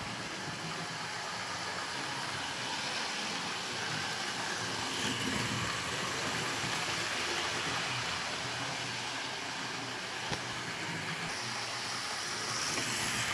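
Hornby Patriot Class model steam locomotive running steadily around a model-railway loop pulling two carriages: the even whirr of its electric motor and wheels on the track.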